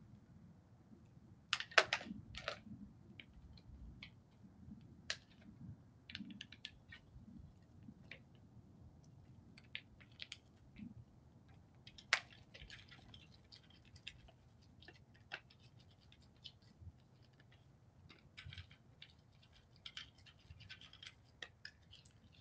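Sharp clicks and clacks from two white-tailed deer bucks, loudest in a quick cluster about two seconds in as their antlers knock together, then scattered lighter clicks and taps as they feed.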